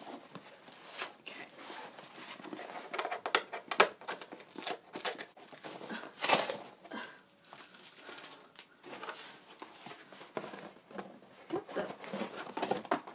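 Cardboard shipping box being handled and pulled open by hand: irregular crinkling, scraping and tearing of cardboard, with the sharpest rip about six seconds in.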